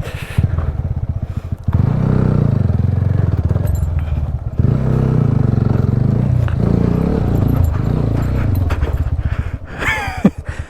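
TVS Apache RTR 200 motorcycle's single-cylinder engine running at low revs, its pitch shifting as the bike works over rough ground. It gets louder about two seconds in. A short vocal exclamation comes near the end.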